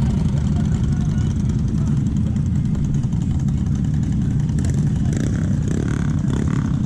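A vehicle engine running steadily close by, a loud low rumble.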